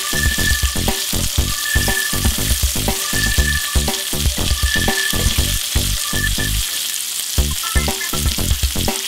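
Bacon, red onion and pineapple rings sizzling on a hot cast-iron grill pan, with utensil sounds as they are turned. Background music with a steady beat plays along.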